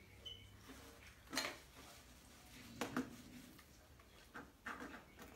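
A few faint, short knocks and clatters of a small plastic basket against a plastic step platform.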